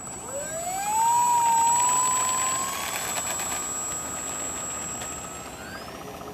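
Electric motor and propeller of a Parkzone F4U Corsair RC plane throttling up for takeoff: a whine that rises sharply in pitch in the first second, then holds and creeps higher. A thin, steady high-pitched whine sits over it. It is loudest a second or two in, then fades as the plane rolls away down the road.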